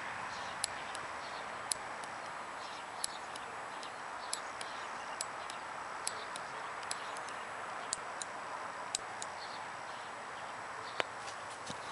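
Sunding SD-548 bicycle computer's mode button being pressed repeatedly, sharp short clicks roughly once a second, over a steady background hiss.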